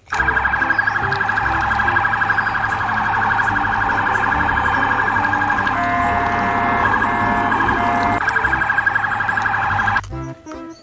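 Police car siren in a rapid warble, briefly switching to a pattern of steadier separate tones partway through, then stopping abruptly near the end.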